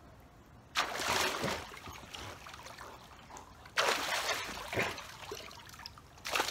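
Swimming pool water splashing in sudden bursts, about 1 s in, about 4 s in and again near the end, each one trailing off into trickling.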